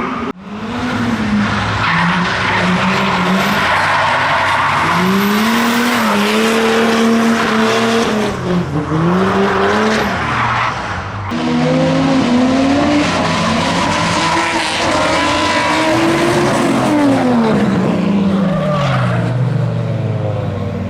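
Drift car engines revving hard, their pitch swinging up and down with the throttle, over tyres squealing and skidding as the cars slide. The sound breaks off abruptly and starts again twice, just after the start and about eleven seconds in.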